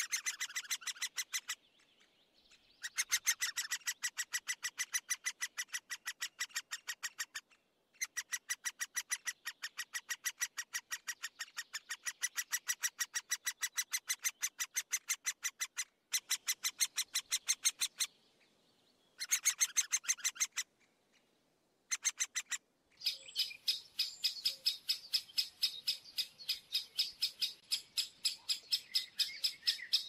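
A woodpecker calling in rapid runs of short, sharp, evenly spaced notes, about eight a second. The runs last several seconds each and break off and restart abruptly.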